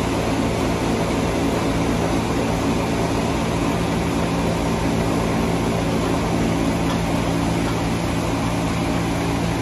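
Sawmill machinery's engine running steadily at one constant pitch, with an even hiss over it.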